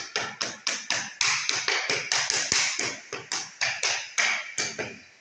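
Quick rhythmic scrubbing strokes on a freshly laid tile floor, about four a second, each a short gritty swish that dies away at once. They stop near the end.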